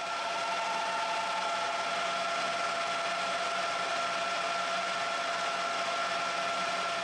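Colchester 1800 manual lathe running under cut, its tool turning a Delrin workpiece: a steady two-tone whine over a constant hiss of cutting.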